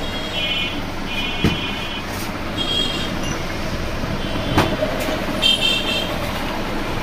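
Steady street traffic with repeated short, high vehicle horn beeps, five in all. Two sharp knocks fall in between as a glass and the blender jar are set down on the counter.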